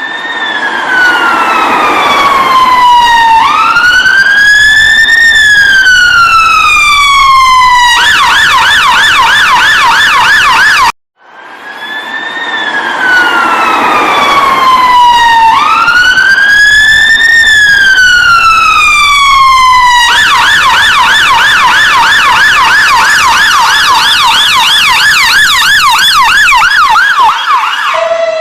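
British ambulance siren sounding loudly in a slow wail that falls, rises and falls again, then switches to a fast yelp. It cuts out for a moment about eleven seconds in and runs through the same wail-then-yelp sequence again.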